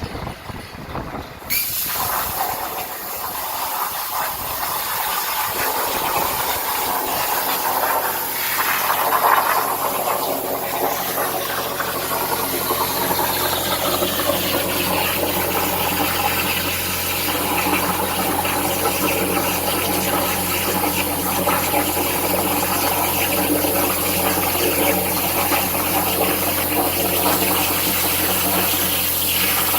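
Air plasma cutting torch on a CNC plasma table, giving a loud steady hiss that starts about a second and a half in. A steady electrical hum joins it about seven seconds in.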